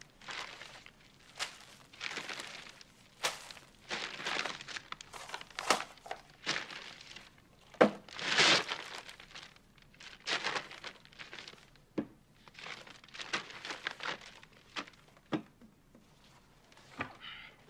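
Brown paper grocery bag rustling and crinkling as a packed lunch is unpacked from it, with short knocks of items set down on a wooden table. The rustles come in irregular bursts, the longest about eight seconds in.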